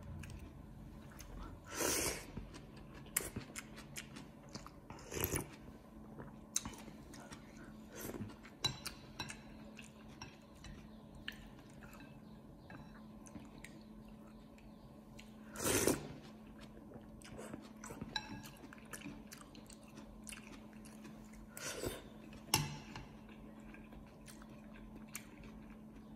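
Eating noodle soup from a ceramic bowl with chopsticks and a metal spoon: chewing, small clicks of the spoon and chopsticks against the bowl, and now and then a louder half-second sound as broth is sipped from the spoon, over a faint steady hum.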